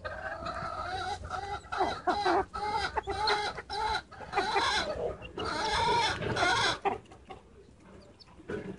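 Wild chickens clucking in a busy run of short calls that rise and fall, dying down to a quieter stretch about seven seconds in.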